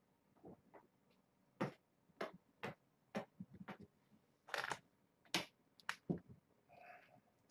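Kittens scrambling and playing over a hand and forearm, giving a run of irregular light clicks and taps with a short scuffle in the middle. Near the end there is a brief high squeak.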